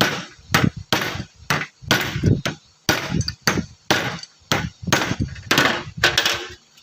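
Hammer tapping a driver to seat an oil seal into a power steering box: a steady run of sharp blows, about two to three a second, each with a short ring.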